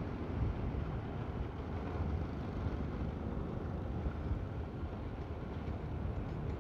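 Steady, even rumble of wind and road noise from a motor scooter riding along at speed, picked up by a headset microphone; no clear engine note stands out.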